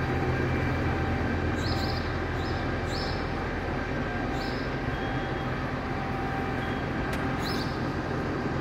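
Vicon RV 1901 round baler-wrapper combination running: a steady mechanical drone with about five short, high squeaks at irregular intervals. The noise sounds like steel grinding on steel somewhere in the machine, a squealing fault not yet traced.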